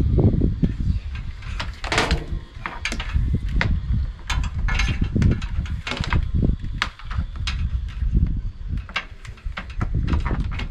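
Irregular knocks, clicks and scraping over low, uneven thumps: the noise of someone handling things and moving about up close.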